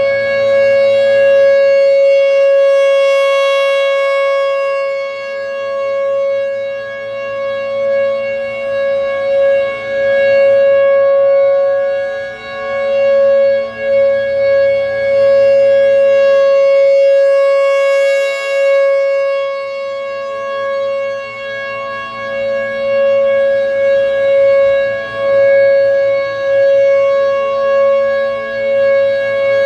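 Federal Signal Thunderbolt 1000 rotating outdoor warning siren sounding a steady alert tone during its monthly test. The tone holds one pitch while its loudness swells and fades about every seven to eight seconds as the horn turns.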